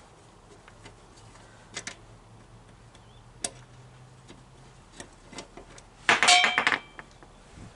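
Scattered sharp metallic clicks of hand tools on metal, with a louder clatter of ringing metal about six seconds in.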